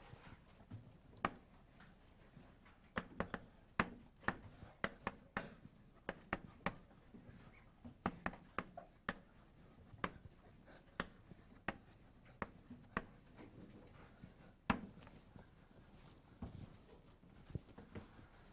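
Chalk on a blackboard as a sentence is written out in cursive: irregular sharp taps and scratches, a few a second, thinning out near the end.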